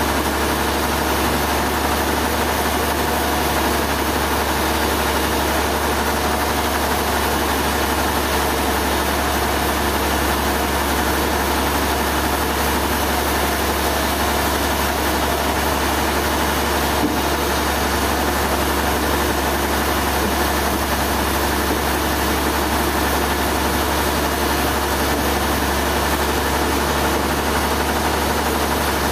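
Sawmill machinery running with a steady, unchanging drone and a strong low hum.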